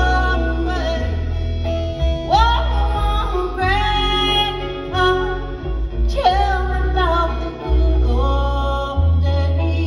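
Live country band playing: a female lead vocal holds long notes and twice slides up into a note, over acoustic guitars and upright bass.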